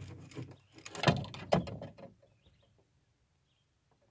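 Spinning reel being cranked as a small fish is reeled in: mechanical clicking with a few knocks of handling for about two seconds, loudest about a second in. Then it goes near quiet, with faint bird chirps.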